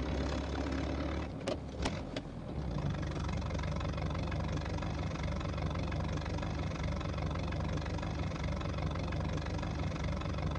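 Car engine running at a steady idle, with three sharp clicks about one and a half to two seconds in.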